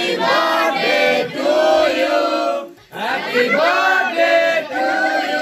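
A song with singing voices, mostly long held notes. It breaks off briefly just under three seconds in.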